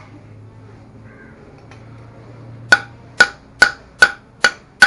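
Six sharp metallic hammer taps in quick succession, a little over two a second, starting a bit over halfway in. They are striking a 6203 ball bearing that will not seat fully in a Honda C70 engine's crankcase.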